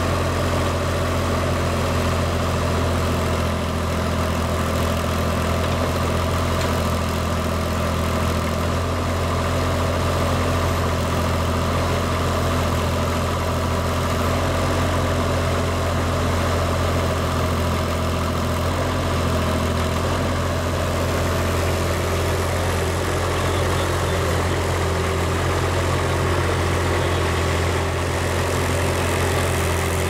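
Avant 528 compact loader's diesel engine running steadily with its backhoe attachment digging, a low, even hum that holds without change.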